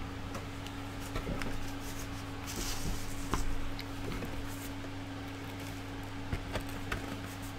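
Faint handling noises of thin plastic buffer plates being slid into the slots of 3D-printed holder parts: a few light clicks and taps, with a brief scrape about two and a half seconds in, over a steady low hum.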